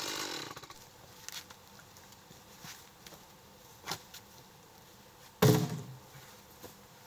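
Two-stroke chainsaw engine dropping in pitch and dying away in the first second, as the saw winds down to a stop. Then come a few light knocks and, about five and a half seconds in, one loud, heavy thud.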